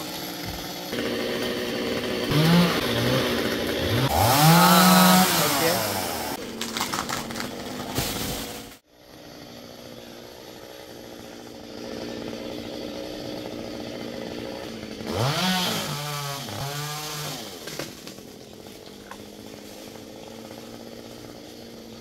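Stihl chainsaw revving up and down several times, running at a lower steady speed in between. The sound breaks off abruptly about nine seconds in, then resumes more quietly before revving again.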